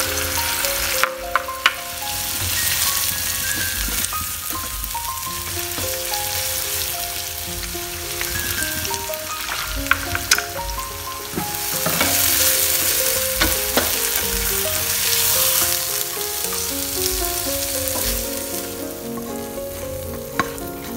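Pounded paste frying in hot oil in a nonstick pan, a steady sizzle, while a plastic spatula stirs and scrapes it with occasional clicks against the pan. The sizzle fades near the end.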